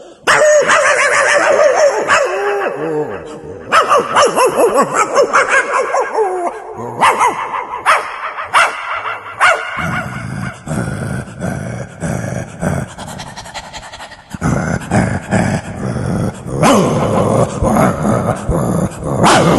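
A dog barking and yipping in a string of short clips that cut abruptly from one to the next.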